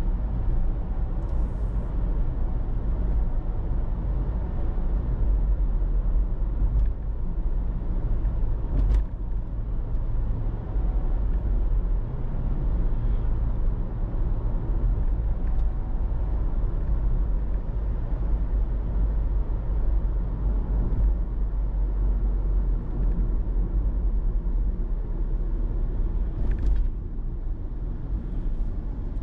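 Car driving in city traffic: a steady low rumble of road and engine noise, with a few faint clicks.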